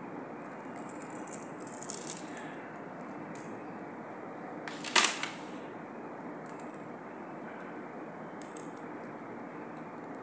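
Strings of beads and bead bracelets clicking and rattling against each other as they are handled, with a sharper clack about five seconds in, over a steady background hiss.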